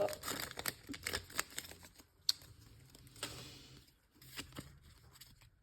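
Pokémon trading cards being handled and flipped through: light, scattered clicks and rustles of card stock, with a longer soft rustle about three seconds in.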